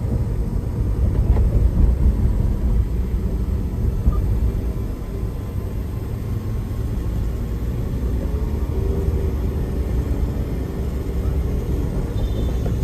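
Steady low rumble of a vehicle on the move, engine and road noise with no sharp events.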